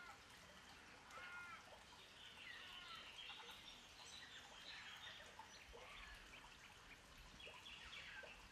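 Faint birdsong: many short chirps and calls from several birds over a soft background hiss.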